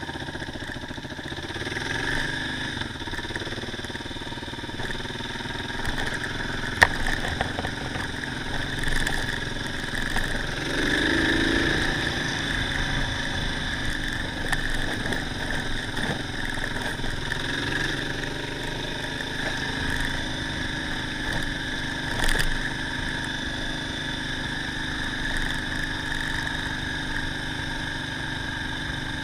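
Motorcycle engine running steadily under way on a dirt track, with road noise from the tyres. A sharp knock about seven seconds in, and the engine note swells briefly around eleven seconds.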